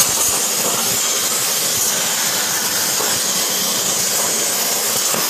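CNC plasma cutter torch firing and cutting the outer profile of the part: a loud, steady hiss of the plasma arc and air, starting suddenly as the torch fires.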